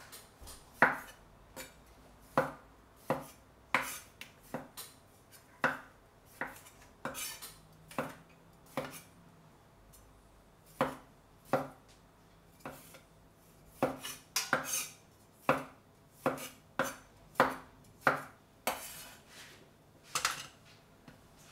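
Kitchen work: sharp, irregular knocks and clinks of utensils against a board and dishes, one or two a second.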